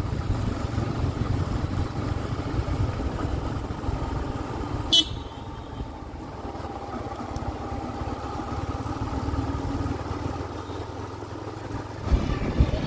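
Yamaha MT-15 motorcycle's single-cylinder engine running steadily under way, with a low rumble of road and wind. A brief sharp noise about five seconds in is the loudest moment, and low thumps come near the end.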